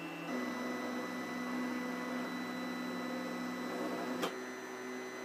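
Stepper motors of a Trinity Labs Aluminatus 3D printer, driving its lead-screw axes, whining in steady pitched tones as the print head traces the first layer at slow speed. The pitch shifts about a third of a second in and again about four seconds in, with a short click at the second change.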